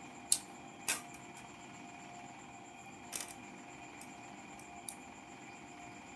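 A few sharp small clicks and taps, two close together near the start, a short cluster around the middle and one more later, from small parts and tools being handled while repairing a keyboard key. They sit over a faint steady hum.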